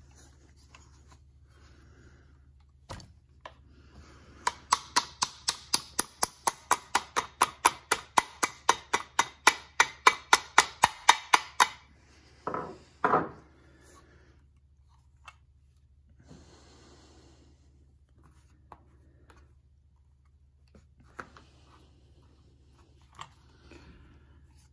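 An even run of sharp clicks, about three or four a second for some seven seconds, followed by two heavier knocks and scrapes, as the parts of a Hi-Point 995TS carbine are worked during reassembly. The rest is faint handling noise.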